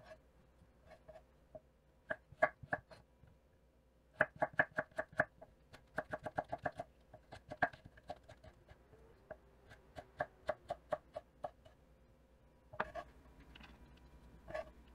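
Chef's knife cutting onion and carrot on a wooden cutting board: sharp knocks of the blade striking the board. They come singly at first, then in quick runs of several chops a second, then more scattered.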